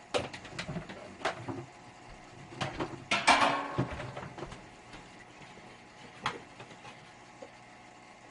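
Scattered knocks and clicks of parts being handled, with a louder scraping clatter lasting about half a second around three seconds in.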